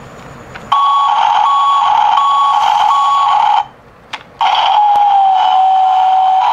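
Electronic truck reversing beeps, about four evenly spaced beeps over a steady hum and hiss, cutting off about three and a half seconds in. After a short pause the hum returns under a long steady tone that slides slightly lower.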